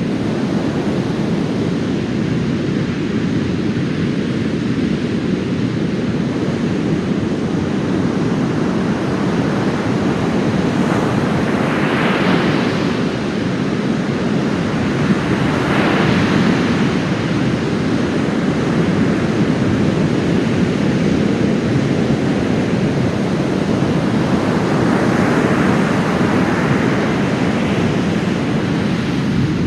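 Heavy storm surf after a typhoon breaking on a sandy beach: a constant deep rumble of water, with waves crashing about twelve seconds in, again a few seconds later, and a longer crash near the end.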